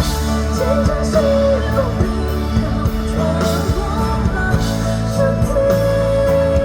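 Rock band playing live, with a sung melody over electric guitar, bass and drums.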